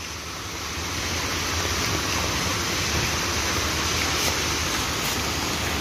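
Rain falling steadily, an even hiss with no breaks.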